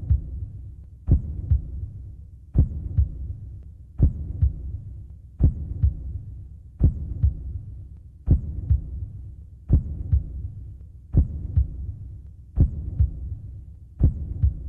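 Slow heartbeat sound effect: a strong beat followed by a softer one less than half a second later, the pair repeating evenly about every one and a half seconds over a low steady hum.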